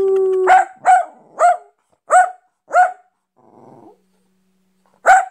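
Dachshund barking on cue. A long held note fades out about half a second in. Then come five short barks in quick succession over the next two and a half seconds, a brief quiet rustle, and one more bark near the end.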